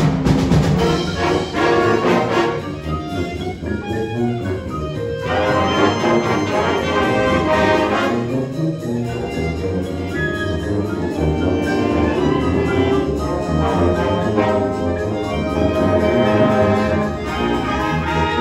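A high school symphonic band of woodwinds, brass and percussion playing a concert-band piece live, with brass prominent.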